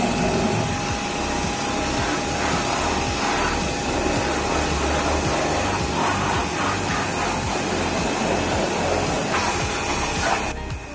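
Pressure washer running, its jet hissing as it sprays water over a car's body, over the steady hum of the washer's motor. It cuts off near the end.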